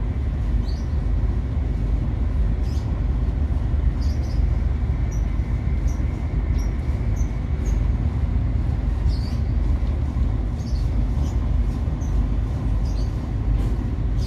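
Ship's diesel engine running with a steady low rumble, while the vessel manoeuvres at slow speed during unmooring. Faint short high chirps come and go over it.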